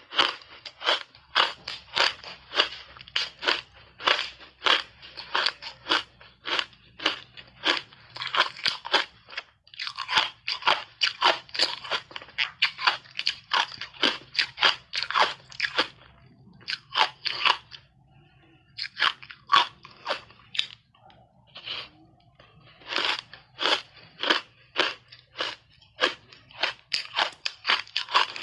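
Close-up crunching of hard ice chunks coated in matcha powder being bitten and chewed, a rapid run of sharp crunches about three a second. The crunching thins out for several seconds past the middle, then turns dense again.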